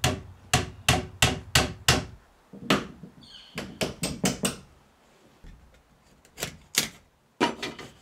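Hammer blows on wood: a run of quick, sharp strikes in several bursts with short pauses between them.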